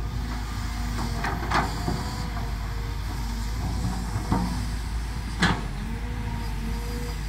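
Kobelco SK200 hydraulic excavator's diesel engine running steadily under working load as the arm and bucket move. A few short sharp knocks from the bucket and linkage come through, the loudest about five and a half seconds in.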